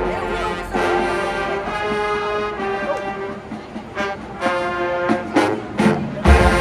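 Marching band brass section playing held chords that move from note to note, with sharp drum hits near the end, the last one low and heavy.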